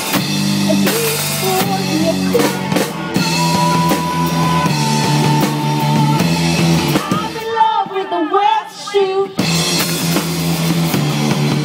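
Rock band playing live, with drum kit and guitar. About two-thirds of the way through, the band drops out for a moment, leaving only a wavering pitched line, then comes back in at full strength.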